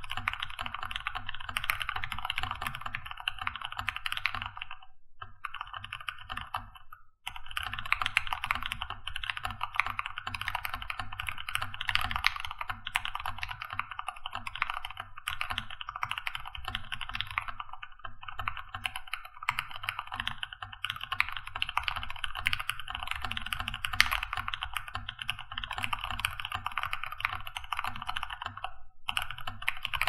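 Fast, continuous typing on a modded Keychron K2 mechanical keyboard: lubed Gateron Yellow linear switches with switch films, Dolch PBT keycaps and sound-deadening mat in the case. The keystrokes run together in a rapid stream, with a brief break about seven seconds in.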